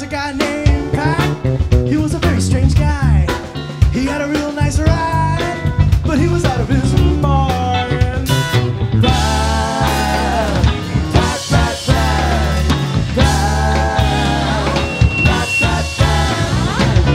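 Live rock band playing a psychedelic jam: electric guitars, keyboards, bass and drum kit together, loud and continuous.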